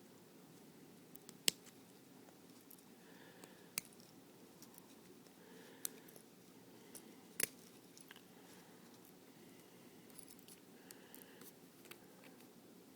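Faint, irregular clicks and small scrapes of a hand tool picking leftover molded plastic out of a quick-disconnect fuel-line adapter fitting, the sharpest clicks about a second and a half in and again about seven and a half seconds in.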